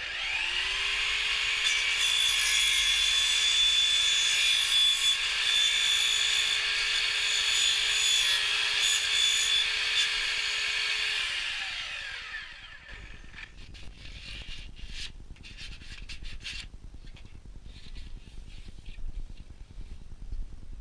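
Festool Kapex sliding mitre saw starting up and cutting through grey plastic soil pipe, its motor holding a steady whine under loud cutting noise for about ten seconds, then winding down with a falling pitch. Afterwards come light knocks and rustles from handling the cut pipe.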